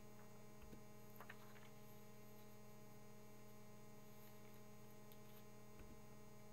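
Near silence: a steady low electrical hum on the recording, with a few faint knocks.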